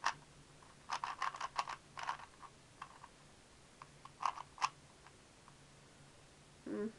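Rubik's speed cube being turned fast during a solve: quick runs of plastic clicks and clacks from the layers, in bursts with short pauses between them. A brief low sound comes just before the end.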